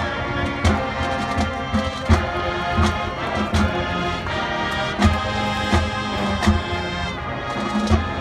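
High school marching band playing its competition show: brass chords held over a steady bass drum beat.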